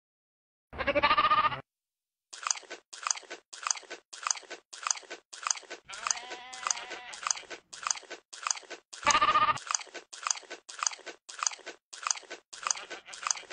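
Goat bleating twice, about a second in and again past the middle. Between the bleats, a steady rhythmic crunching of chewing, about three strokes a second.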